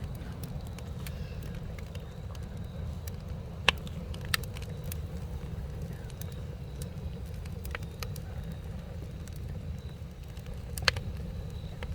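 Campfire crackling, with scattered sharp pops, the loudest a little under four seconds in and near the end, over a steady low rumble.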